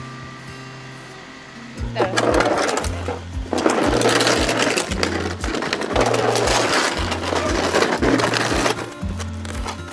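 Background music with a bass beat. From about two seconds in until near the end, a loud, rough machine noise sits over it, breaking off briefly about a second and a half after it starts.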